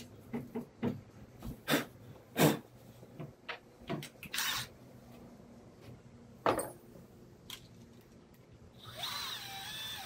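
Scattered knocks and clicks of wood and tools being handled, then a DeWalt cordless drill running for about a second near the end, its pitch wavering.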